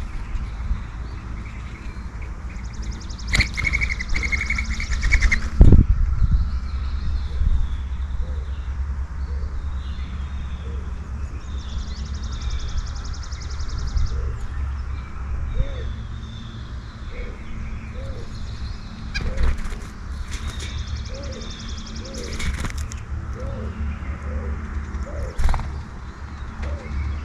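Birds at a backyard feeder: high, rapid trills lasting a couple of seconds, repeated three times, and a run of short, low, soft coos through the second half, with a few brief wing flutters, over a steady low rumble.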